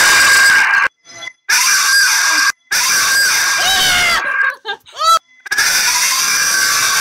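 People screaming and shrieking in short clips cut abruptly one into the next, with a high, rising shriek about five seconds in.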